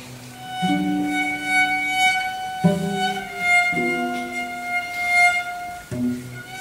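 Cello ensemble playing: a long-held melody high in the cellos' register over lower bowed notes that come in short, repeated groups underneath.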